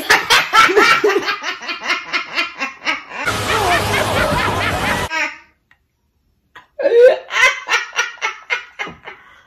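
Women laughing hard in rapid, rhythmic bursts. About three seconds in, the laughter is cut by roughly two seconds of sound from a spliced-in film clip, then comes a short silence, and the laughter resumes and tails off.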